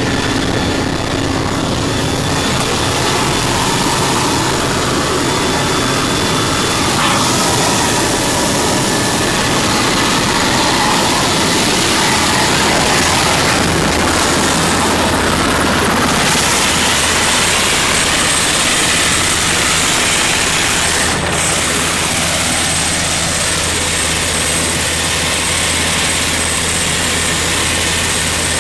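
Eurocopter AS532 U2 Cougar helicopter running on the ground with its rotor turning, its turbine engines and rotor making a loud, even noise with a low drone and a thin steady high whine.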